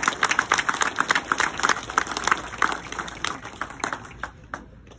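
A small crowd clapping and applauding, the clapping thinning out over the last couple of seconds to a few scattered claps.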